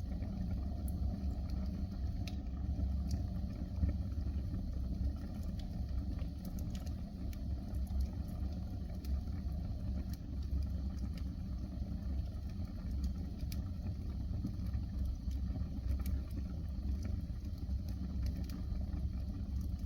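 Fire burning in a fireplace: a steady low rumble with scattered small crackles and pops.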